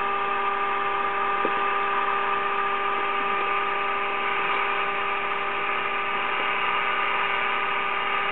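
1936 RCA Victor 5T1 tube radio's speaker sounding the signal generator's steady, buzzy test tone over hiss. The 460 kc signal is coming through the wave trap, which is being adjusted for minimum output.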